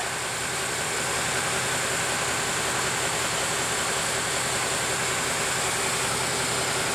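A bus engine idling, a steady, even running noise with no changes.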